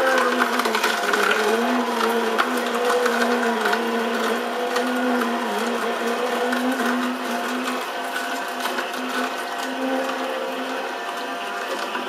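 Sharp EJCP10BJR slow juicer running: a steady motor hum with a slightly wavering pitch, with faint crackling as the auger crushes carrot.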